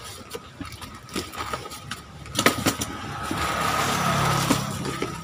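Cardboard box and taped cardboard-wrapped parcels being handled on a wooden bench, giving short knocks and scrapes. From about halfway through, a steady engine hum swells up in the background and eases off near the end.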